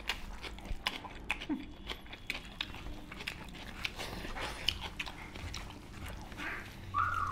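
Mukbang eating sounds: fingers mixing rice and chicken curry on steel plates, with chewing and lip smacking, heard as a run of small clicks and smacks. Near the end a short high-pitched tone rises briefly.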